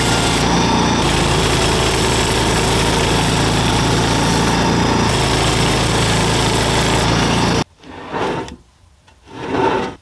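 Gas-engine portable bandsaw mill running and sawing through a cedar log, a loud, steady engine-and-blade noise that cuts off abruptly about three-quarters of the way through. A couple of brief, much quieter noises follow.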